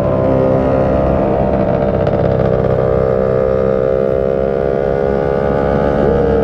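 Motorcycle engine running at a steady cruise, its note easing slightly lower, over a rush of road and wind noise. Near the end, a single short tone rises and then slides down.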